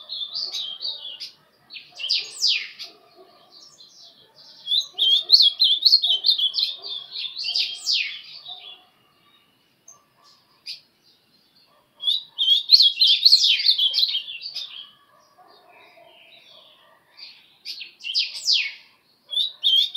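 Ultramarine grosbeak (azulão) singing: phrases of quick warbled notes, several ending in a sharp falling sweep, repeated with pauses of a few seconds between them.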